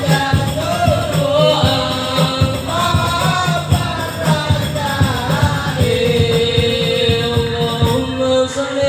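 Men singing an Arabic sholawat to the beat of hadrah frame drums (rebana). About six seconds in the singing settles onto one long held note as the drumming thins out.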